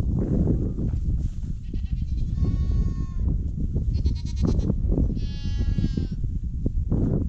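Goats bleating, three calls about two and a half, four and five seconds in, the middle one quavering, over a steady low noise.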